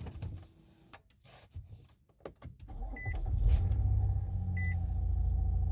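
Nissan Altima started up: a few light clicks and knocks, then the engine catches about three seconds in and settles into a steady idle with no whine from the CVT, the whine cured by replacing the bent, pump-starving transmission strainer and oil pan. Two short electronic beeps sound about a second and a half apart.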